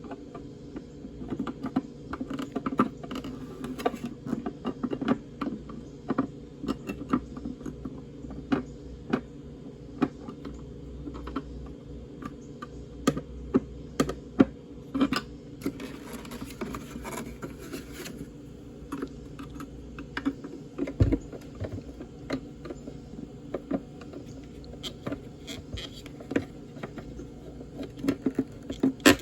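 Irregular clicks and light scrapes of a metal pick working against the plastic of a Honda Pilot tail light assembly, prying at the inner lens tabs to hook them into their slots, with a longer scrape about halfway through.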